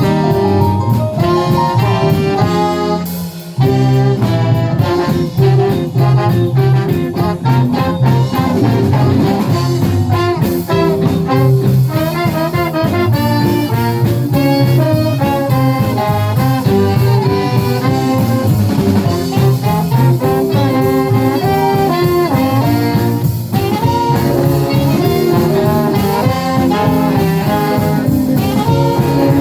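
A live band playing a song, with a brief break in the music about three seconds in.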